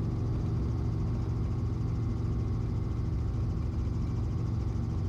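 Robinson R44 helicopter heard from inside the cabin while climbing out after takeoff: a steady low drone of engine and rotors, made of several fixed low tones that do not change.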